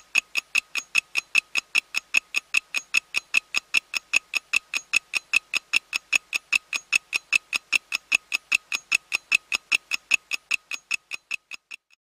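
Clock-ticking sound effect timing a rest break: fast, even ticks, roughly four a second, stopping just before the end.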